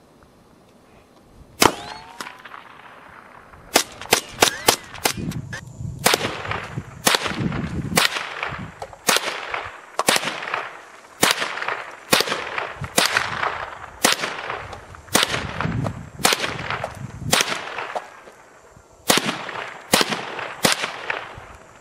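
Gunshots from a .22 rimfire gun, about twenty in all. One shot comes first, then a quick string of about five, then steady shots about a second apart, each with a short tail after the crack.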